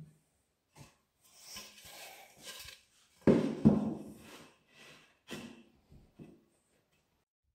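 Plywood panels being handled and stood against each other while a box is dry-fitted: rubbing and scraping of wood on wood, with two sharp wooden knocks close together about three seconds in and a few softer knocks after.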